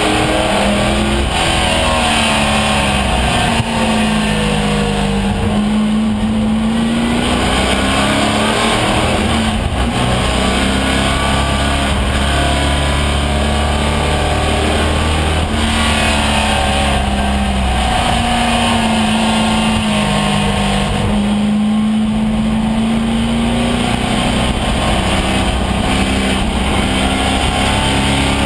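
AMC Javelin AMX race car's engine at racing speed, heard from inside its stripped cockpit: loud and continuous, its pitch sweeping down and back up over several seconds, twice, as the car slows and accelerates through corners, over road and wind noise.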